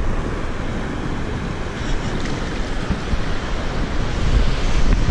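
Shallow surf washing and foaming around the wader, with wind rumbling on the microphone.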